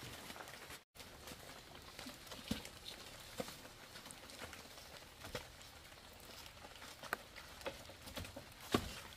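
Light rain pattering steadily, with scattered irregular taps and knocks and one louder knock near the end.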